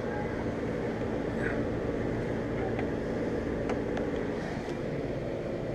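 Steady machine hum of a running PTAC air conditioner unit, with a few faint clicks over it.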